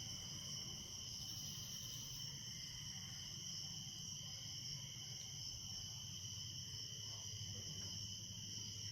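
A night insect chorus of crickets or katydids, trilling on without a break at two steady high pitches.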